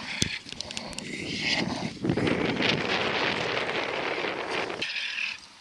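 German Shepherd growling while gripping a padded bite sleeve in protection training. A loud, rough growl swells about two seconds in and stops abruptly near the end, after a few sharp clicks at the start.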